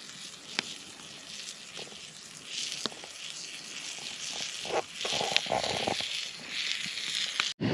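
Wood campfire crackling and hissing unevenly, with a few sharp pops.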